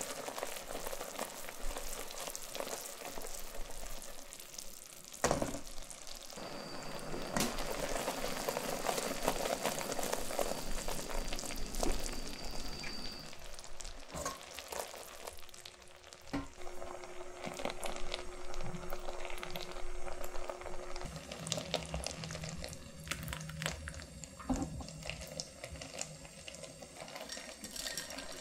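Tanghulu sugar syrup thickened with agar, boiling hard in a stainless steel pot: a dense crackle of popping bubbles. The syrup is cooking down toward candy stage, its centre just starting to turn yellow. The bubbling thins out in the second half, with a few sharper clicks.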